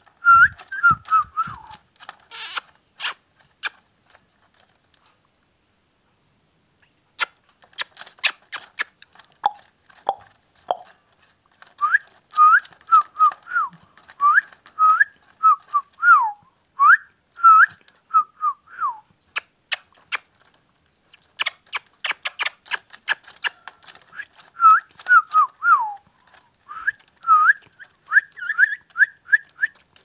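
Rose-ringed (ringneck) parakeet giving runs of short whistled chirps, each note sliding up or down in pitch, in several bursts with pauses between them, among scattered sharp clicks.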